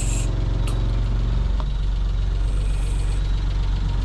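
Suzuki Jimny JA11's small three-cylinder turbo engine running at low speed while the car is manoeuvred into a parking spot. Its note shifts slightly about a second and a half in.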